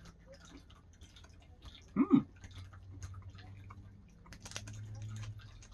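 Small crisp clicks and crackles as a milk chocolate bar with crispy cereal pieces is broken and chewed. A brief voice sound comes about two seconds in, and a low steady hum lasts about a second near the end.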